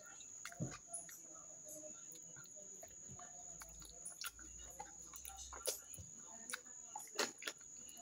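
Eating sounds: scattered sharp clicks and scrapes of a knife against a plate as meat is cut and bitten, with faint chicken clucks and a steady high-pitched whine behind.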